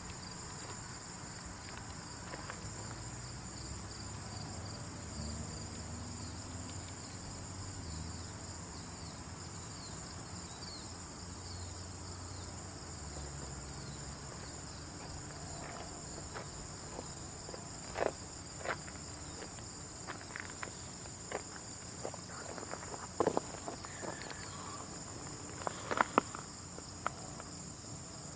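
Nature ambience sold as ants building a colony: a steady, high insect chorus over a low rumble. Scattered small clicks and crackles begin about halfway through and grow more frequent toward the end, a few of them louder.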